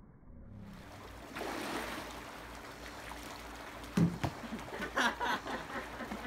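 Swimming-pool water sloshing and splashing as people move through it, with a sharp thump about four seconds in and a quick run of splashes about a second later.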